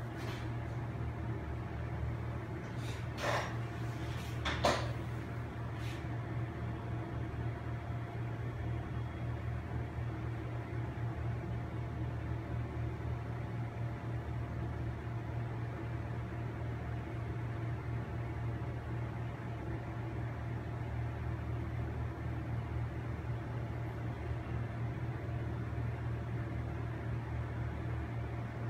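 Steady low electric motor hum, with two brief light knocks a few seconds in.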